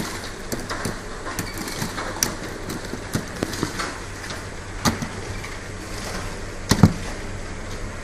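MT-200 automatic round-bottle labeling machine running: a steady low mechanical hum with irregular clicks and knocks of small bottles clattering, the loudest knock about seven seconds in.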